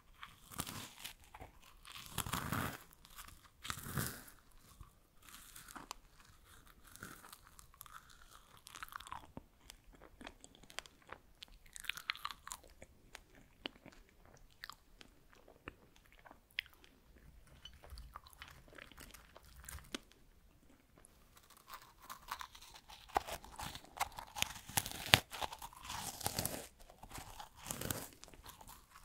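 Close-miked eating of freeze-dried strawberries: crisp, brittle crunches as the dry fruit is bitten and chewed. The crunching comes in busy bursts at the start and again near the end, with softer, sparser chewing between.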